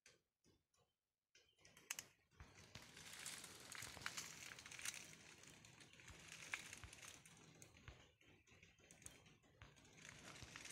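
Faint footsteps crunching and rustling through dry fallen bamboo leaves and twigs, full of small crackles. It starts about a second and a half in, after near silence.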